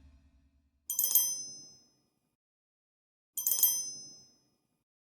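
A small bell dinging twice, about two and a half seconds apart, each a short bright ring that dies away in under a second; the two rings are identical, a repeated sound effect.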